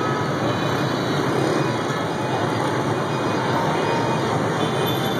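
Steady, unbroken din of heavy road traffic, mostly motorbike and scooter engines with some cars, passing through a busy intersection.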